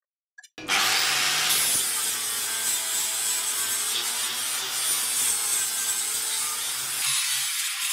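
Electric angle grinder with a flap disc grinding a weld on a steel square tube. It cuts in abruptly about half a second in and grinds steadily with a high whine. Near the end the grinding noise drops away as the disc comes off the metal, leaving the motor's whine briefly.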